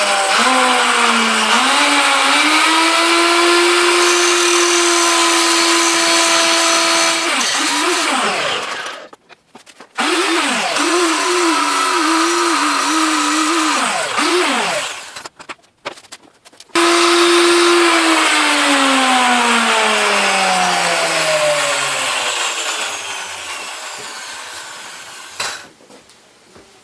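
Harbor Freight grinder grinding a steel railroad rail: the motor whines steadily with a grinding hiss, its pitch wavering as it is pressed into the steel. It is switched off and restarted twice, and the last time it winds down slowly over several seconds.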